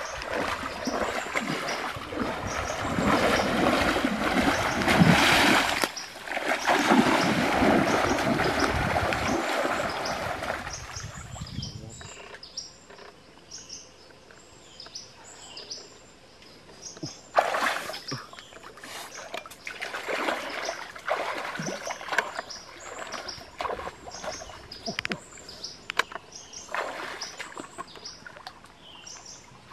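Water splashing as a person wades and digs by hand in a shallow mangrove creek for mangrove clams: heavy, continuous splashing for about the first twelve seconds, then quieter, with a few separate splashes and short high bird chirps.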